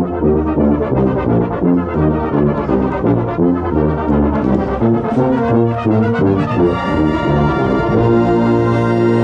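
Drum corps brass line playing loud, with a close contrabass (marching tuba) carrying the low notes. It plays a rhythmic run of short, punched chords, then settles into a long held chord about seven seconds in.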